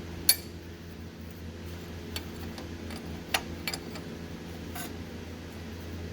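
Sharp metallic clinks of a hand wrench against bolts, five scattered over the few seconds, the loudest just at the start, over a steady low hum.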